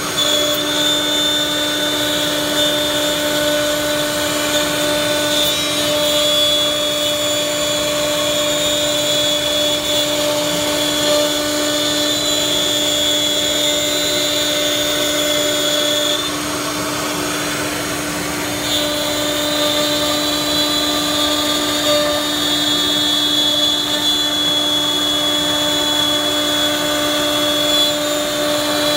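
Four-head CNC router's spindles running with a steady high whine while the bits cut into a wood panel. The sound eases briefly about two-thirds of the way through, then picks up again.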